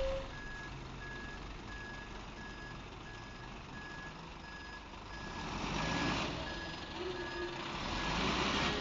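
Reversing alarm on a Volvo B6BLE single-deck bus beeping steadily, a short high beep a little more than once a second, as the bus backs off its stand. The diesel engine swells under the beeps twice in the second half as the bus moves off.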